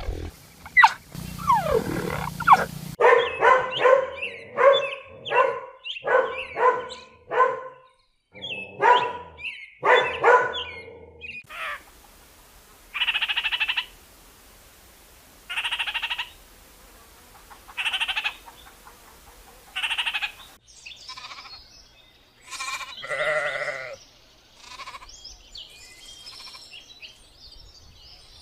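Bleating farm animals: a string of short bleats, and in the middle four separate calls about two seconds apart, with the background changing abruptly between sections as separate recordings are cut together.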